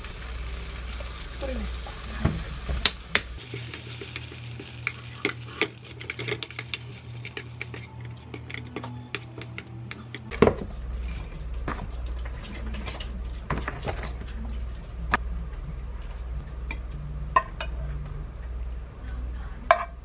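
Chicken pieces sizzling in a nonstick frying pan as a spoon stirs them through thick sauce, with repeated taps and clicks of the spoon against the pan. The sizzling fades about eight seconds in, and a few louder knocks come later.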